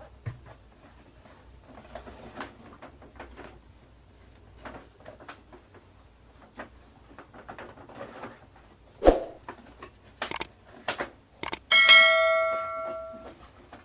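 Faint handling of packaging with light clicks, then a sharp knock about nine seconds in and a few clicks, followed near the end by a clear ringing ding that fades over about a second and a half, as a piece of the ceramic mug set is knocked against another.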